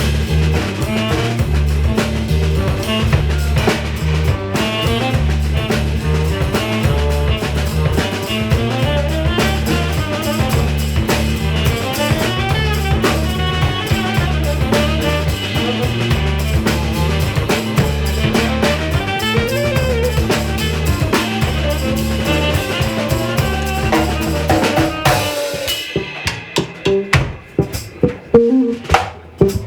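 A live trio playing, with a drum kit and a strong repeating bass line under a melodic line. About 25 seconds in the bass and melody drop out and the drums carry on alone with sharp, separated hits.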